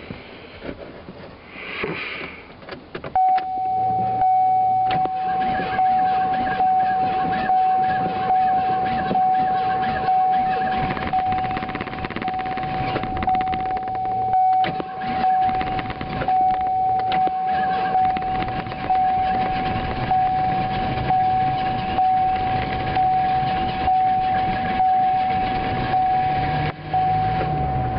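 1988 Ford Thunderbird Turbo Coupe's turbocharged 2.3-litre four-cylinder engine catching about three seconds in and then running, heard from inside the car. A steady high-pitched tone starts with it and sounds over the engine throughout.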